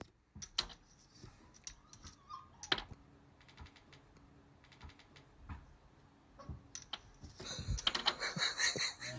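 Sparse faint clicks and taps, then a denser run of light clicking and rattling near the end.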